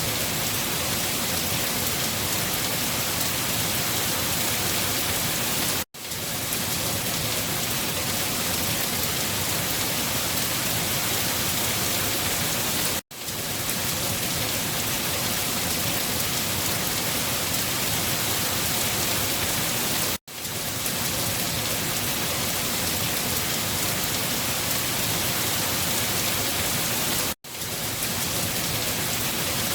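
Steady, dense rainfall with no thunder. The sound cuts out for a split second four times, about every seven seconds.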